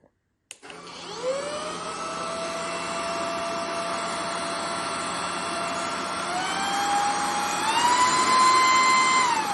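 Cordless stick vacuum switched on with a click, its motor whine rising as it spins up and then running steadily. The pitch steps up twice, getting louder, and drops back down near the end.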